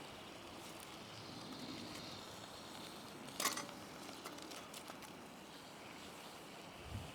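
Campfire crackling with a soft, steady hiss, scattered small ticks and one sharp pop about three and a half seconds in.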